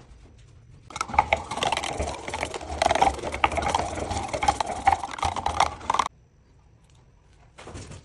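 A stick stirring thick liquid resin in a metal tin, scraping and clicking rapidly against the tin's sides and bottom for about five seconds, then cutting off abruptly.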